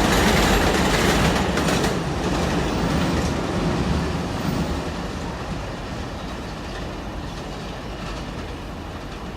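Kawasaki R188 subway train running past with wheels clattering on the rails, loud at first and fading steadily as it moves away.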